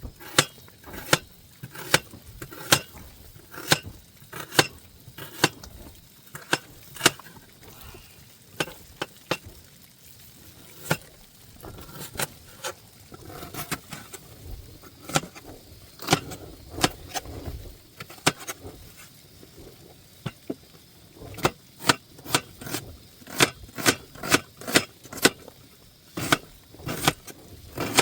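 Knife chopping an onion on a cutting board: sharp separate chops, one or two a second, quickening to a run of about two a second near the end.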